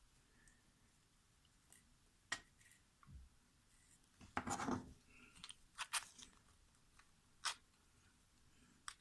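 Scattered small clicks and a brief scrape of lock parts being handled while a pin tumbler lock is taken apart, its pins and springs being removed one chamber at a time.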